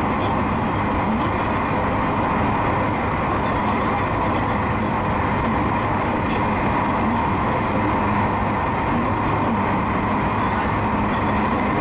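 Steady running noise of a JR West 221 series electric train heard from the cab as it travels at speed between stations: wheels on rail and running gear, level and unchanging throughout.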